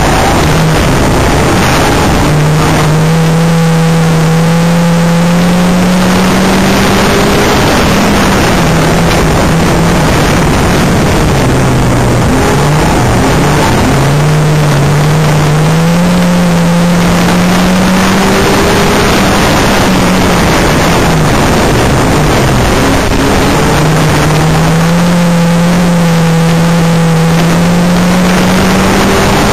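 A banger racing car's engine, heard from inside the car at race pace. Its pitch rises as it accelerates down each straight and falls away into the bends, about every ten seconds, over a constant rush of road and wind noise.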